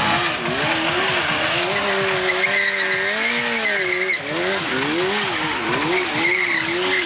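Sport motorcycle engine being revved hard, its pitch rising and falling, held high for a couple of seconds in the middle, then blipped up and down in quick repeated revs through the second half.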